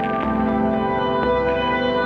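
Ambient background music: slow, sustained tones over a low bass that shifts every half second or so.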